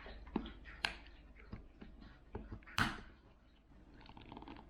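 Scattered light clicks and taps of small tools and fingers working at a smartphone's casing, the loudest click nearly three seconds in.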